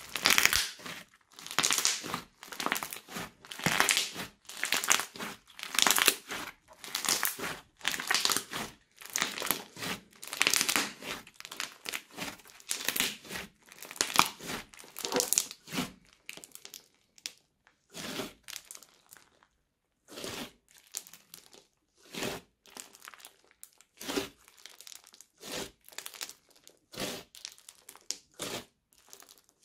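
Thick crunchy slime with small foam beads being squeezed and pressed by hand, crackling and popping in quick repeated bursts with each squeeze. The bursts come thick and loud for the first half, then grow sparser and quieter, with a brief pause about two-thirds of the way in.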